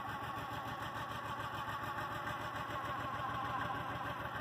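Compact farm tractor's engine running steadily while it works the front-end loader, lifting and creeping forward; it swells a little about three seconds in.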